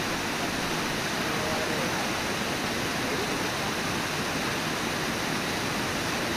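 Brooks Falls, a river waterfall, rushing steadily as white water pours over the lip of the falls.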